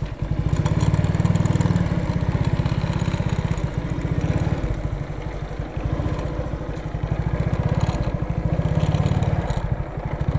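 Motorcycle engine running under way, its firing pulses fast and even; it gets louder about half a second in and then swells and eases slightly with the throttle.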